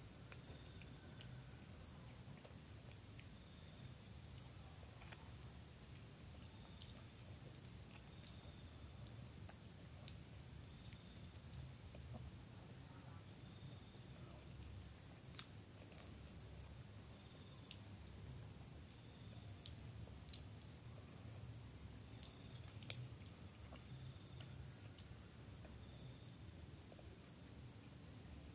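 A cricket chirping steadily at about two chirps a second, over a faint low hum. A single sharp click comes late on.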